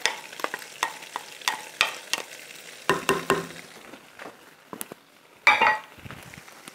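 Meatballs frying with garlic in hot oil in a clay tajine, sizzling with irregular sharp crackles and pops as the oil spits. A short louder burst of noise comes about five and a half seconds in.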